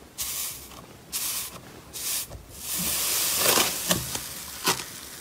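Hands squishing and pressing into thick green slime in a glass dish: a run of airy, hissing squishes as air is pushed out of it, with a few sharp pops near the end.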